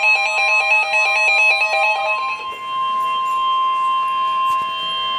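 Emergency Alert System attention tone announcing a severe thunderstorm warning: a steady, loud electronic tone near 1 kHz. Background music plays under it and stops about two and a half seconds in.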